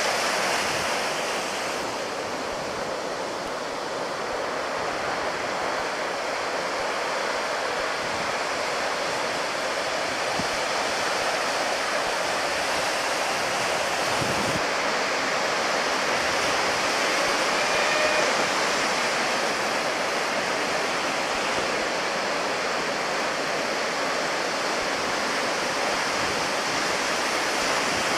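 Steady wash of breaking ocean surf, an unbroken rushing noise that swells a little and never stops.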